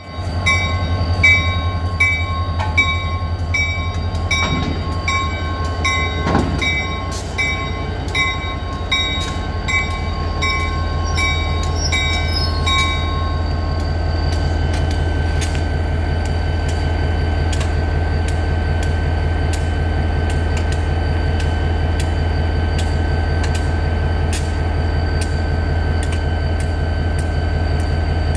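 Diesel locomotive No. 501 idling with a steady low hum. A bell rings about twice a second for the first thirteen seconds or so, and faint regular clicking runs underneath.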